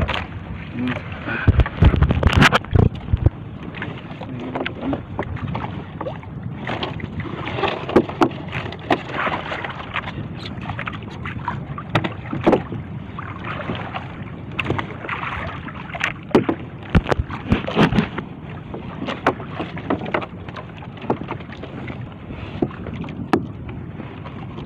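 Water splashing and irregular knocks and clatter as a fishing net is paid out over the side of a small boat into the sea, with wind on the microphone. A few heavier bumps come about two seconds in.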